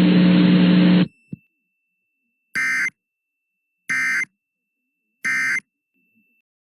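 Emergency Alert System end-of-message code: three short, identical bursts of buzzy digital data tones about a second and a half apart, signalling the end of the tornado warning. Before them, the broadcast's hiss and hum cut off about a second in, followed by a click.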